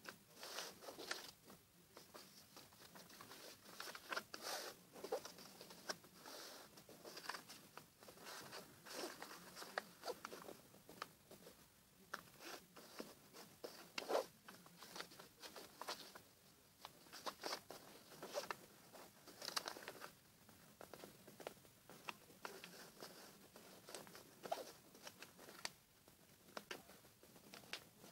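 A sheet of paper being folded by hand: irregular rustling, crinkling and short scrapes as fingers press and crease the folds.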